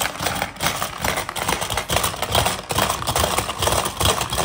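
Hungry frog tabletop game in play: a rapid, continuous plastic clatter as the players hammer the levers and the frogs' heads snap out after the plastic balls.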